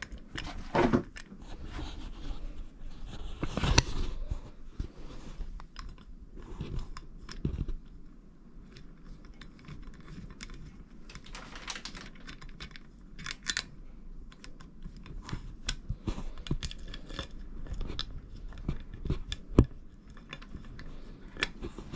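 Close handling noise of equipment being fitted by hand: irregular clicks, taps and rubbing, with louder knocks about a second in, around four seconds in and near the end.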